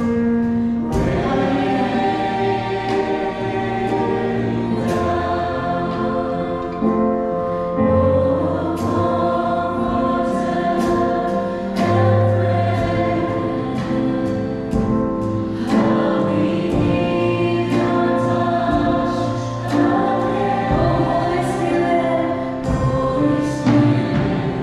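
Live worship music: a woman's lead vocal on a microphone with a choir singing along, backed by a band with drums, keyboard and guitar. Sustained sung notes over steady bass notes and regular drum hits.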